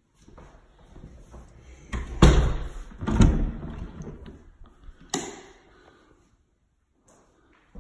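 Wooden interior door being opened and closed, with two heavy thumps about two and three seconds in and a sharp knock about five seconds in.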